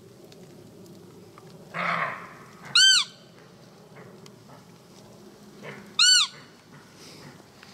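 Two short, high, arching roe deer 'fiep' calls about three seconds apart, the doe-like call used to lure a roebuck in. A brief rustle comes just before the first call.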